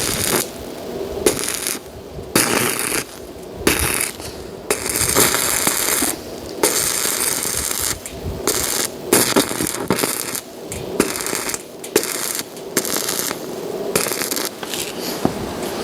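Arc welding: a crackling sizzle that starts and stops over and over, in short bursts of under a second to about a second and a half, as a series of welds is laid on a steel frame.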